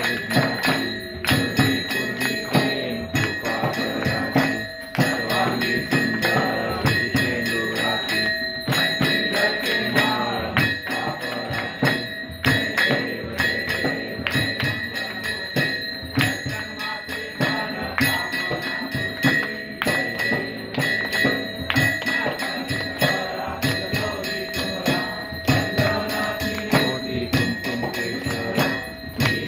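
Hindu temple aarti: a bell ringing without pause over rhythmic clapping and devotional singing.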